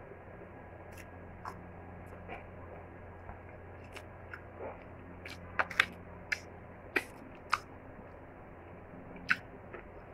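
Cooked crab shell cracking and crunching as the crab is pulled apart by hand and eaten: a scatter of sharp cracks and clicks, the loudest several close together about halfway through and one more near the end, over a faint steady low hum.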